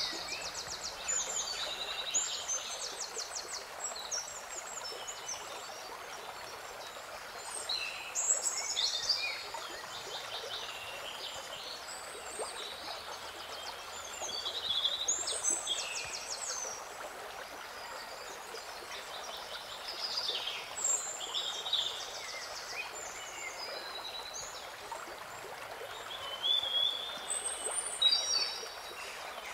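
Songbirds singing short, high, trilling phrases every few seconds over the steady rush of a flowing stream.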